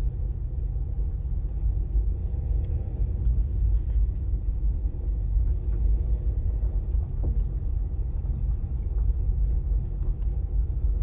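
Steady low rumble of a car engine running at a slow crawl.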